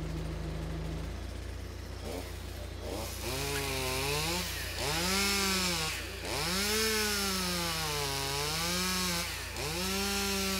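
Chainsaw starting to rev about three seconds in, then running in repeated swells, its pitch rising and falling as it prunes branches from a willow. Under it is the steady low hum of the idling telehandler's engine.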